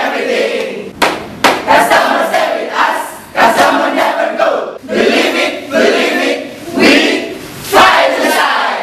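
A group of men and women shouting and chanting a team cheer together, in repeated loud phrases about once a second.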